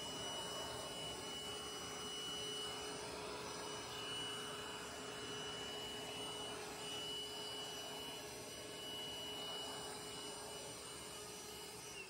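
Vacuum cleaner running steadily, a rush of air with a steady whine over it, sucking dust off a refrigerator's condenser coils.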